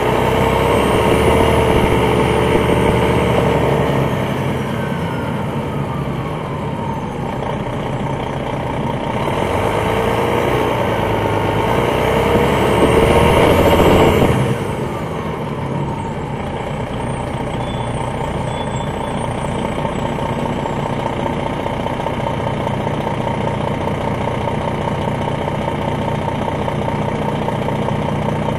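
An MCI D4000 coach's Detroit Diesel Series 60 engine, heard from on board, pulling under load. It grows louder to a peak about 14 seconds in, then drops off sharply and runs steadily. A high whistle rises and falls twice.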